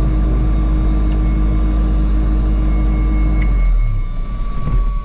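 Diamond DA40's piston engine idling steadily, heard from inside the cabin, then shut down about four seconds in; the engine note breaks up as the propeller runs down and the noise falls away near the end.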